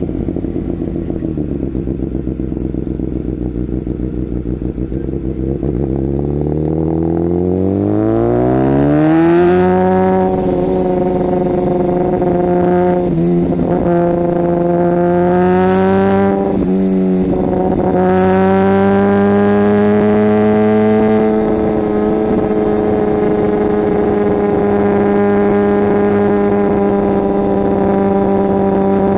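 Kawasaki ZX-10R's inline-four running through a Mivv aftermarket exhaust while riding: a low steady note, then the revs climb smoothly for about four seconds. The note dips briefly twice, then holds at a steady cruise.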